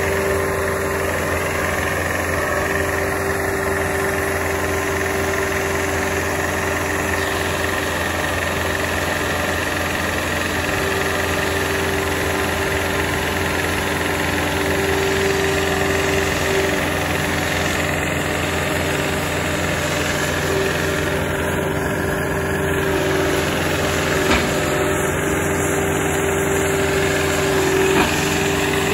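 Engine of a remote-controlled crawler house tug running steadily while it moves a mobile home, with a steady whine that drops out and comes back several times.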